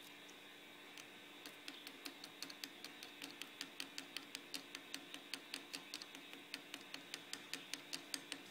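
Light, rapid taps of a white plastic rod on a Rochelle salt crystal held in foil-wrapped alligator clips, about four taps a second, starting about a second and a half in and stopping near the end.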